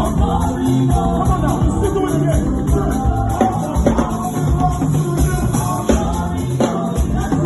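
Live gospel praise band playing: drum kit, bass and piano under singing voices, with several sharp drum hits in the middle.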